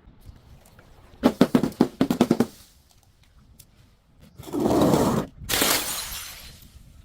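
Something crunchy being crushed: a rapid run of sharp cracks and crunches, then, a couple of seconds later, a longer, louder crunching that fades out.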